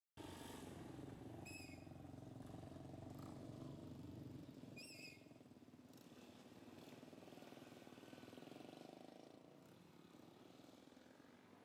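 Faint outdoor ambience with a steady low engine hum that fades after about five seconds. Two short high chirps come about a second and a half in and again near five seconds.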